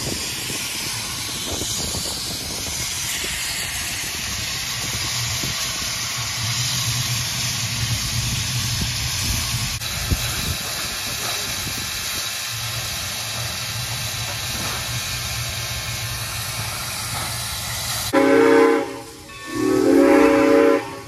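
Steam locomotive 3025 hissing steadily, then sounding its steam whistle in two long blasts near the end, the signal that it is releasing its brakes to depart.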